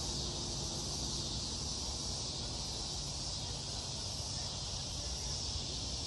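Steady chorus of insects, a continuous high-pitched shimmer, over a low rumble.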